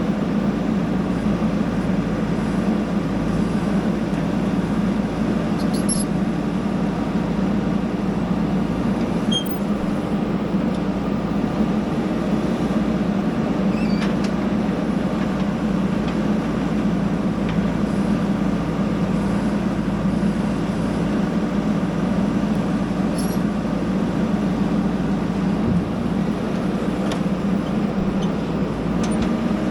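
Diesel engine of a JCB backhoe loader running at a steady, even speed, with a few faint clinks.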